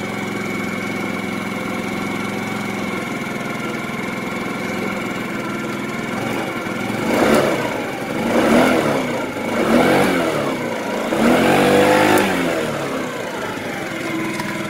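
Small scooter engine idling steadily, then revved up and back down four times in quick succession in the second half before settling back to idle. The revving is a charging-system test: with a new charging relay (regulator-rectifier), the battery voltage stays at about 14.3–14.4 V, within the normal 13.5–14.5 V.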